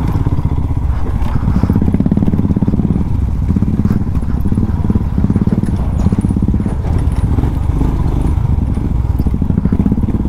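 Motorcycle engine running steadily under way, a low, even beat of firing pulses.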